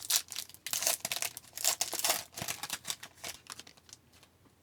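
Hockey card pack wrapper being torn open and crinkled, with a quick run of crackling rustles that dies down about four seconds in.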